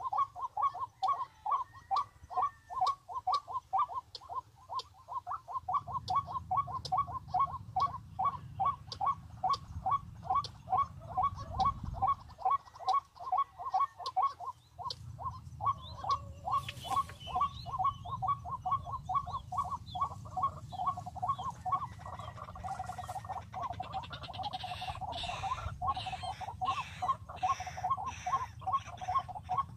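A bird calling a fast, very regular run of short, hoarse notes, about three a second, with a low rumble underneath from about six seconds in. Near the end, higher, more varied chirps join in.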